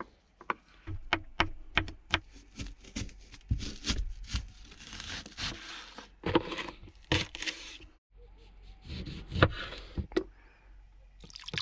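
Kitchen knife chopping garlic and slicing a red onion on a wooden cutting board: a series of sharp knocks of the blade striking the board, a few a second, with a few longer rustling stretches in between.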